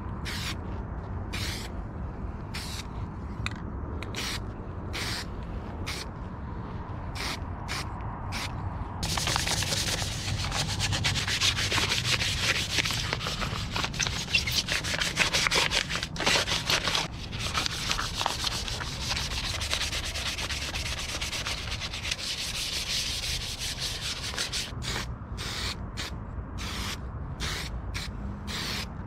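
Hand rubbing an abrasive back and forth over a surface, like scuffing or sanding a part by hand. It starts as separate strokes, turns into a fast, louder run of strokes about nine seconds in, and slows back to separate strokes near the end.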